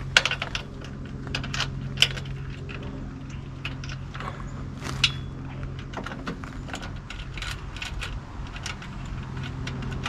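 Small metal hardware clinking and clicking by hand: a bolt, washers and a nut being fitted to mount a work light, with a few sharper clinks about two and five seconds in. A steady low hum runs underneath.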